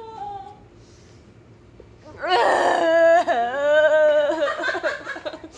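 A woman's long wailing cry, starting about two seconds in and lasting about three seconds, its pitch dipping partway through before it trails off.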